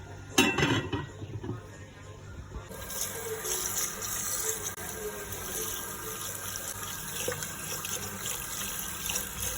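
A brief clatter near the start, then a tap running steadily from about three seconds in.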